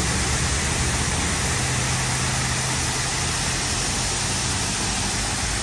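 Large waterfall pouring: a loud, steady rush of falling water.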